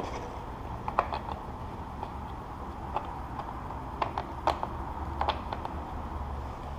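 Deadbolt being worked against a door's strike plate: several separate metallic clicks and clacks of the bolt and lock hardware. The bolt is binding on the strike, which sits too far in for it to latch.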